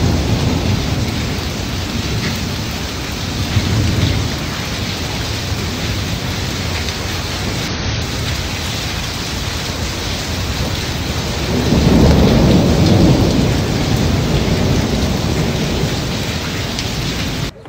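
Heavy rain pouring in a severe thunderstorm, a steady loud hiss, with a deep rumble of thunder swelling about twelve seconds in. The sound cuts off abruptly near the end.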